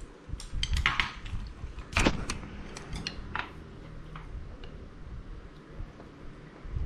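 Chopsticks and dishes clicking and knocking on a dinner table: several short knocks in the first few seconds, the loudest about two seconds in, then a few faint ticks.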